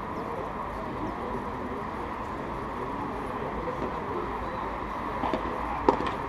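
Padel rally: near the end, two sharp pocks of solid padel rackets striking the ball, the second the louder, over a steady outdoor background noise.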